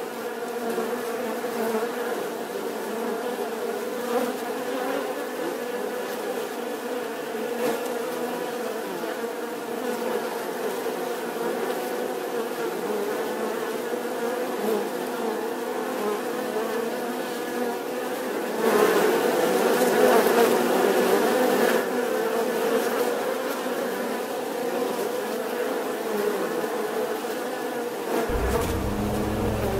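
Bees buzzing in flight, a steady pitched drone that swells louder for a few seconds about two-thirds of the way through. A low rumble comes in near the end.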